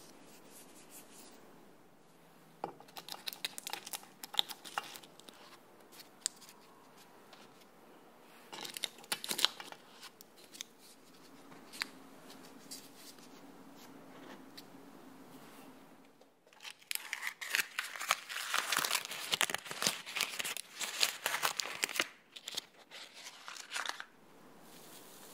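A paper cupcake liner crinkling and tearing as it is peeled off a baked cupcake, a dense crackle lasting several seconds in the second half. It is preceded by two shorter bursts of paper rustling.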